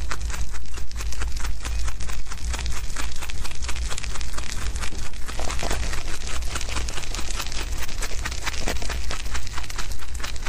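Young rabbits chewing and tearing fresh grass leaves: a rapid, continuous patter of crunching bites, with the leaves rustling as they are pulled and nibbled.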